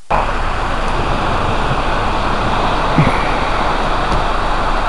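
Wind blowing across the camera's microphone: a loud, steady rushing noise with a rumble underneath.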